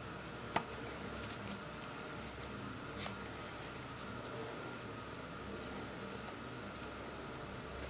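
Faint rustling and scraping of a small sewn fabric piece being turned right side out over a wooden stick, with a short click about half a second in and another about three seconds in, over a low steady hum.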